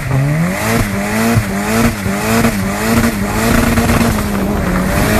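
A motor-vehicle engine revving up and down repeatedly, its pitch climbing in short sweeps about twice a second before settling to a steadier tone near the end.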